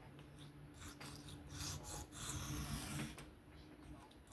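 QVIST PE3 knife edge stroked back and forth on an Atoma 400 diamond sharpening plate: a repeated faint gritty rasp of steel on abrasive.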